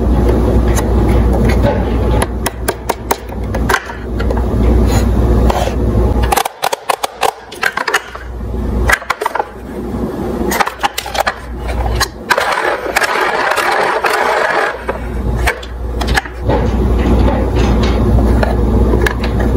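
Plastic toy police car handled and turned over by hand: many plastic clicks, knocks and scrapes, with stretches of low rumbling in the first six seconds and again near the end.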